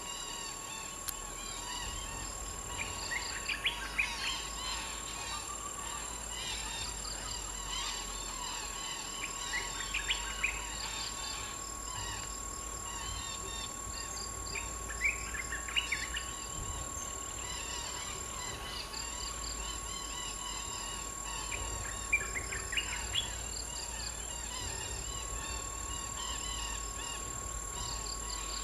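Wild parakeets calling in a few short bursts of sharp, chattering notes, over a steady high-pitched insect drone.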